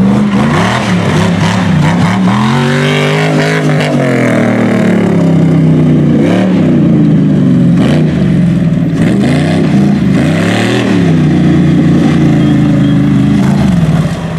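Off-road buggy's engine revving hard under throttle as the buggy charges over dirt mounds, its note climbing and dropping several times.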